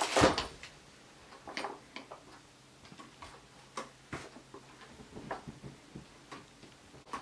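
Yellow plastic ride-on toy knocking and clattering as a toddler tips and pushes it about: a loud clatter right at the start, then scattered light knocks and clicks.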